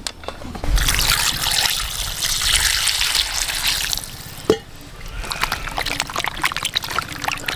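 Hot water poured over chicken feet in a metal pot for about three seconds, then a knock and hands splashing and rubbing the feet in the water to loosen the skin.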